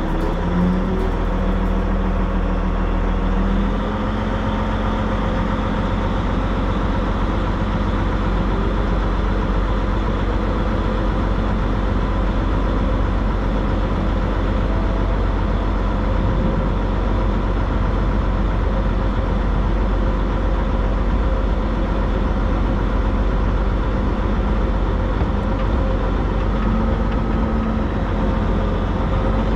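Narrow-gauge steam locomotive working its train slowly along the line: a steady, loud, low running noise.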